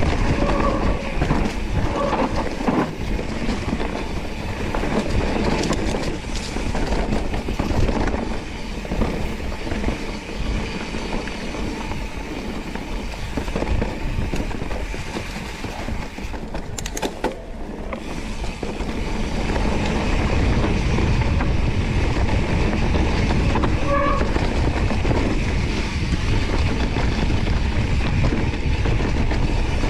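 Mountain bike rattling and clattering over a rough trail. A steady low rumble grows louder and more even in the last third.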